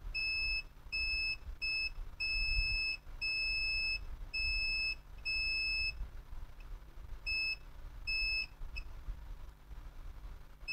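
Multimeter continuity beeper sounding as the probes touch points on a laptop motherboard: a steady high-pitched beep, on and off about ten times in beeps of varying length, with a short pause partway through. The beeping shows a resistance near zero, and the reading is called out as zero.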